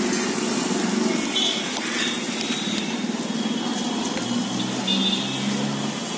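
Street traffic: motor vehicle engines running as a steady drone, with a couple of short higher tones about a second and a half in and again near five seconds.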